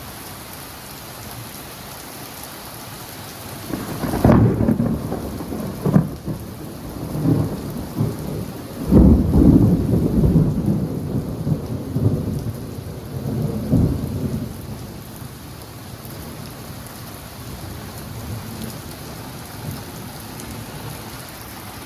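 Steady rain throughout, with a long peal of thunder starting about four seconds in. It has sharp cracks near four and nine seconds, goes on for about ten seconds and dies away.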